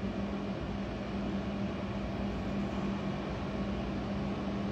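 Steady room noise: an even hiss with a low, steady hum underneath.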